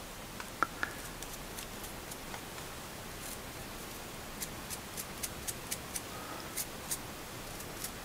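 Faint, scattered light ticks and taps from a small baked polymer-clay piece being turned in the fingers and dabbed with a paintbrush, over a low steady room hiss. The ticks come more often in the second half.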